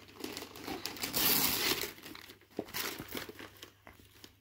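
Paper crinkling and rustling as a Christmas present is unwrapped, loudest about a second in.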